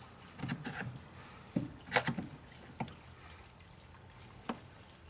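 Plastic PCV valve being twisted in its port on a Jeep Grand Cherokee engine, giving a few separate sharp clicks and knocks, the loudest about two seconds in. The valve is stiff and hard to pull up.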